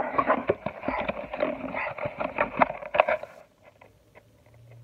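A cardboard box of basketball cards and its paper-and-plastic packs being torn open by hand, a dense crackle of crinkling and ripping that stops about three and a half seconds in.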